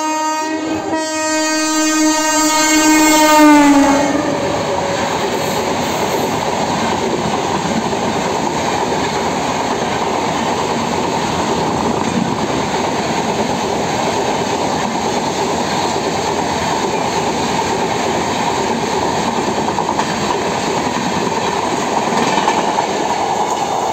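Tejas Rajdhani Express locomotive horn sounding in two blasts and dropping in pitch as the locomotive rushes past. This is followed by the steady, loud rumble and rush of the coaches passing through at speed.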